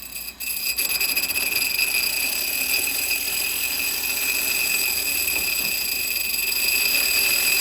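11B9 tapered cup grinding wheel scuffing against a brake-type truing device as its sharp outside edge is dressed off: a steady, shrill grinding whine over a hiss, starting about half a second in.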